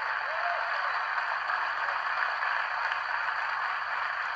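Audience applauding steadily. It is played back through a device's speaker and re-recorded, so it sounds thin.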